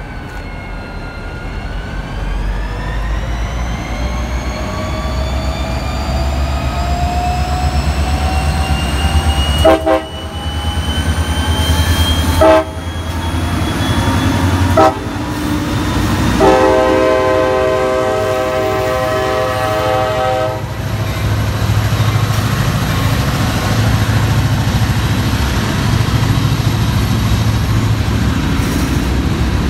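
Diesel freight locomotive pulling away, its whine rising steadily in pitch over a low engine rumble. About ten seconds in it sounds its air horn: three short blasts a couple of seconds apart, then one long blast of about four seconds. The rumble carries on after the horn.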